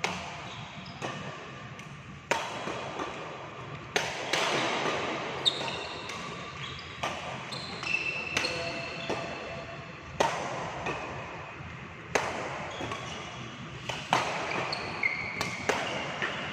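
Badminton rally: racket strings striking a shuttlecock about every two seconds, each hit ringing briefly in a reverberant hall, with short high shoe squeaks on the court floor between shots.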